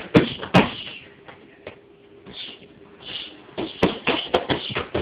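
Punches landing on padded focus mitts. There are a few sharp smacks at the start, then a quick flurry of about five more near the end.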